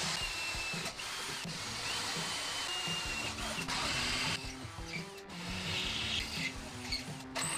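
Cordless drill boring through a metal bar clamped in a vise: a 5 mm pilot hole, then, after a short break a little over four seconds in, the hole opened out with an 8 mm bit. A thin high whine runs through the drilling.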